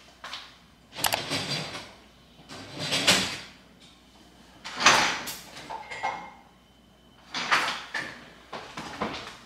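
Kitchen cupboards and drawers being opened and closed, with things being shifted around inside them. The bursts come roughly every two seconds, with light clinks between them.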